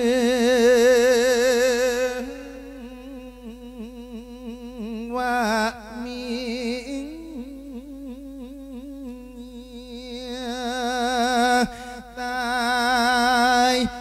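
A male voice through a microphone sings a lae, a melodic Isan Buddhist sermon chant, without words, holding long drawn-out notes with heavy vibrato. It is loud at first, softer through the middle, and swells again near the end.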